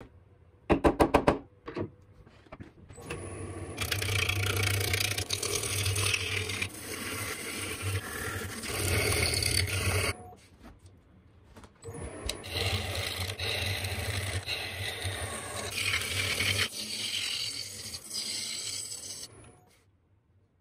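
A spinning cherry log being roughed down on a wood lathe with a gouge: a steady scraping hiss of the cut over the lathe's low hum, in two long passes with a brief lull between. About a second in there is a quick burst of sharp taps.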